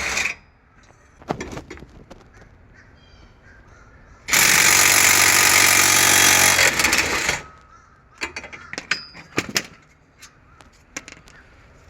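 Impact wrench run for about three seconds, starting about four seconds in, breaking loose a 16mm brake caliper mount bolt. Sharp metallic clicks and knocks of tools being handled come before and after it.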